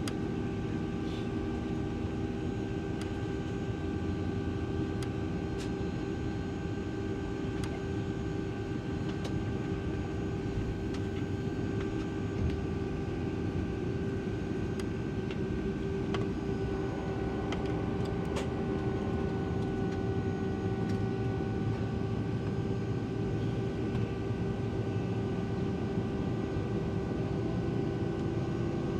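Cabin noise of a Boeing 757-200 with its Pratt & Whitney PW2037 turbofans running steadily at low power before takeoff: a constant rumble with a few steady engine tones and occasional faint clicks.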